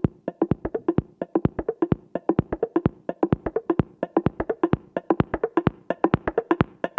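Background music: a fast, busy rhythm of sharp percussion hits like wood block or drum-machine clicks, several a second, over a faint low note.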